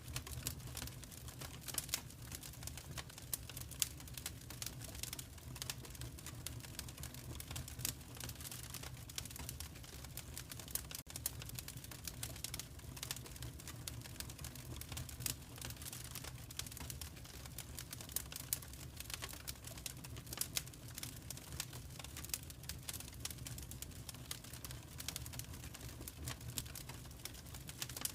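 Fireplace fire crackling, with many small irregular pops and snaps over a steady low rumble.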